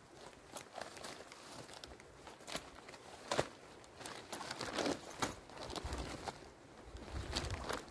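Tent material being handled: irregular rustling and sharp clicks, with a couple of dull thumps near the end.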